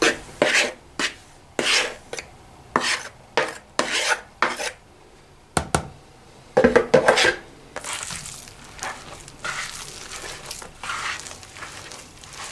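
Flour being scraped by hand out of a plastic bowl into a mixing bowl, in short scraping strokes about two a second, with a single knock about halfway through. After that comes the softer, steady rubbing of a hand working the flour into dough in the bowl.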